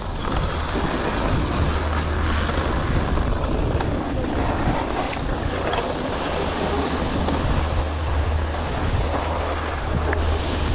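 Wind buffeting the microphone: a steady rushing with a low rumble.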